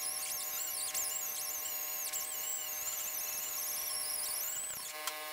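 Pneumatic die grinder with a 60-grit grinding pad smoothing welds on a steel fender patch panel. It gives a high whine that wavers and dips in pitch as the pad bites into the metal, over a steady lower hum.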